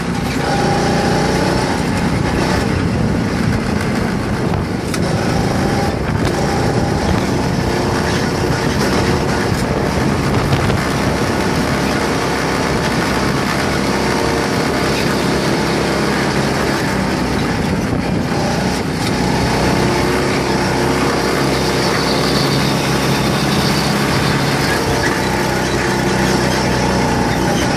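Small go-kart engines running steadily under throttle as the karts lap the track, a continuous engine drone whose pitch drifts up and down with speed.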